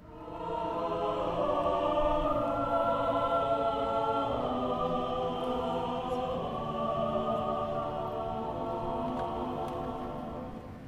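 Mixed SATB choir singing slow, sustained chords, swelling in over the first moment.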